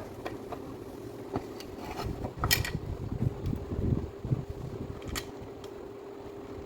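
A small motor hums steadily at one pitch, with scattered clicks and knocks from handling, the loudest about two and a half seconds in.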